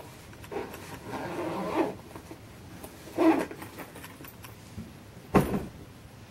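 Objects being handled: a few short rasping, rustling scrapes, then a single sharp knock of something set down about five seconds in.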